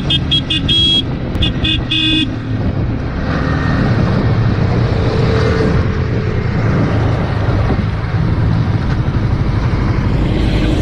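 Motorcycle riding at speed, with a steady engine hum and wind noise. A horn is tooted in two quick runs of short beeps in the first two seconds.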